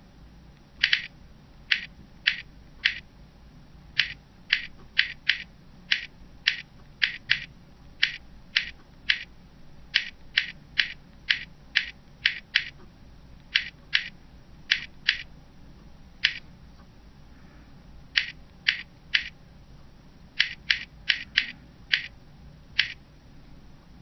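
Sharp clicks, one for each key press, as a finger taps out text on an iPod touch's touchscreen keypad. They come in irregular runs of quick taps, with a pause of about two seconds about two-thirds of the way through.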